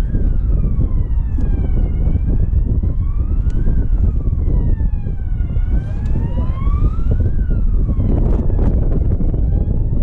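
A siren wailing, its pitch rising and falling slowly about every three and a half seconds, under heavy wind noise on the microphone.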